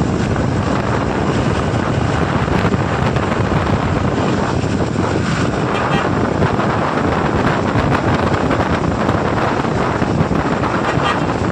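Steady rush of a moving vehicle from inside the cabin: road and engine noise with wind blowing on the microphone, even throughout with no sudden events.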